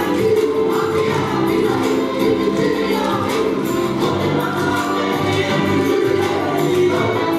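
A large group of schoolchildren singing a song together.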